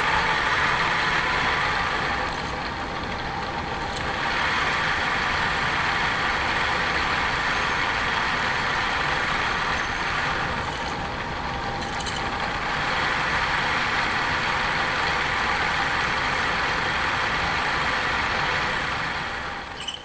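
Drill press running steadily with a loud mechanical hum, easing off twice briefly and falling away near the end.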